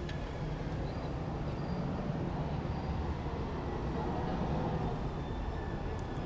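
Steady low rumble of city street noise, swelling a little through the middle.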